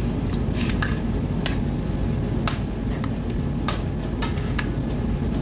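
Metal spoon stirring prawns in a sour cream sauce in a non-stick frying pan, knocking and scraping against the pan in irregular clicks, one or two a second, as the sauce cooks on the stove. A steady low rumble runs underneath.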